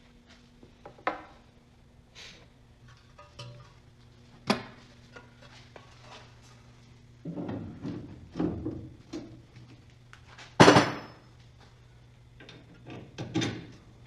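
Scattered clinks, clatters and knocks of metal tools and parts being handled, busiest about halfway through, with one loud knock near the end.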